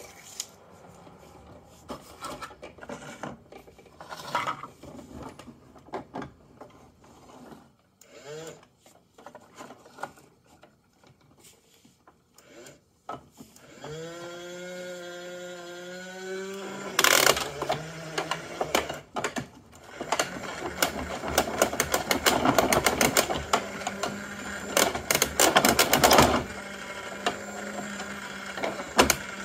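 Small pieces of paper and plastic litter rustle and click as they are handled. About halfway through, a battery-powered toy garbage truck's electronic engine sound rises in pitch and then holds. A long stretch of rapid clicking and rattling follows while its front lift arm raises a toy bin.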